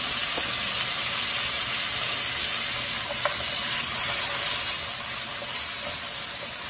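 Chopped onion, tomato, ginger and garlic sizzling steadily in hot coconut oil in a frying pan as they are stirred with a wooden spoon, with one light tap a little over three seconds in.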